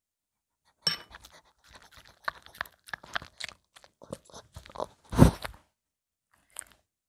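A Maltese dog chewing food taken from a spoon: wet crunching clicks that come irregularly, starting about a second in. A louder thump comes about five seconds in.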